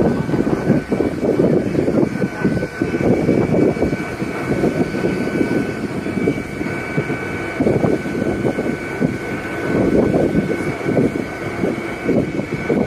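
Fire engine's engine and pump running steadily: a rough low rumble under a constant high whine on two notes.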